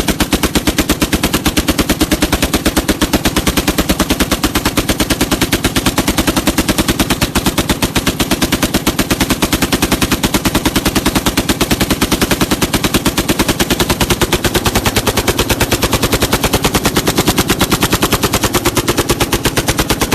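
Browning 1919 machine gun with a short 8-inch barrel firing fully automatic in one long continuous burst, shots coming in a rapid, even rhythm.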